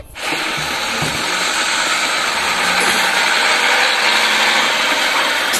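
Old Mercedes-Benz bonneted truck's diesel engine running as the truck drives past, with steady road and traffic noise.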